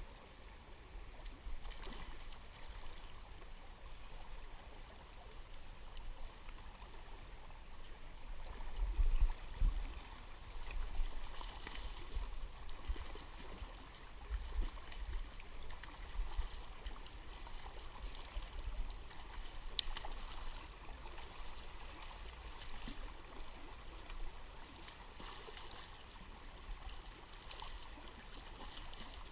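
Steady rush of flowing stream water, with irregular low rumbles that peak about a third of the way in.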